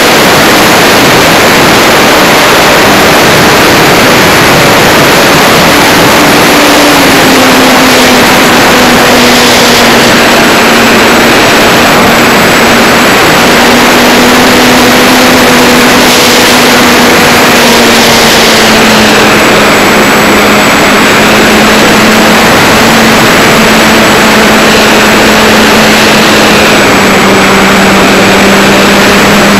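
Electric motor and propeller of an E-flite Wildcat RC warbird in flight, heard from a camera on board with loud wind rush over the microphone. The propeller's tone holds steady and drifts lower in pitch a few times as the throttle changes.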